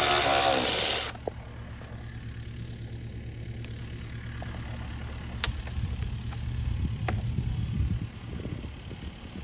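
A loud rushing noise with a voice in it cuts off suddenly about a second in. It leaves a low, steady engine hum of a motor idling in the background, with a few light clicks or knocks.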